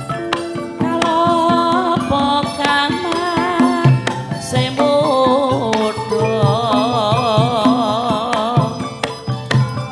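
Javanese campursari gamelan music: drum strokes and pitched percussion notes, with a high melody held with heavy vibrato from about a second in until near the end.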